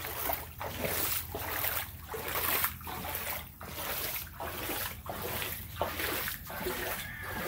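Footsteps of someone in rubber water boots wading through floodwater, a splash about every three-quarters of a second, roughly ten steps in all.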